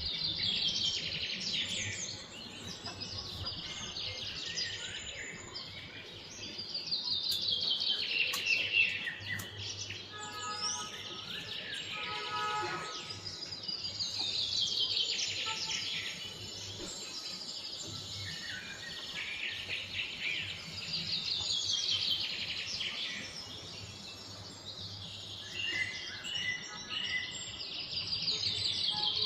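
Birds singing: one song, a fast trill that falls in pitch, repeats about every six or seven seconds, with other short chirps between.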